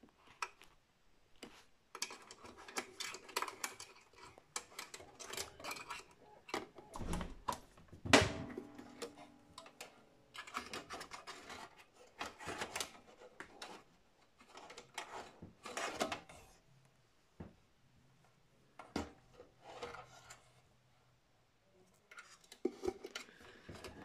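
Hands working inside a Dell OptiPlex 790's sheet-metal case, rattling and scraping metal and plastic parts while a cable is fed through the chassis: a string of small clicks and clatters, with one louder knock about eight seconds in.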